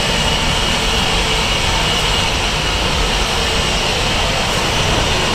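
LMS Ivatt Class 4MT 2-6-0 steam locomotive no. 43106 moving off slowly, with a loud, steady rushing hiss of steam over a low rumble.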